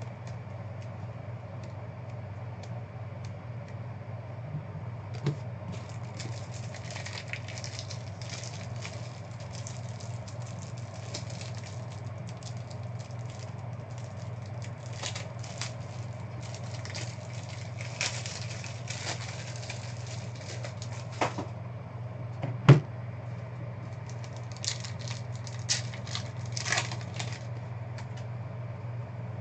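Foil trading-card pack wrappers crinkling and cards being handled, in irregular rustles with a few sharp clicks, the loudest about two-thirds of the way in. A steady low hum runs under it.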